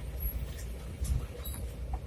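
Low, uneven rumble of a vehicle driving slowly over a rough, wet gravel road, with scattered small clicks and rattles.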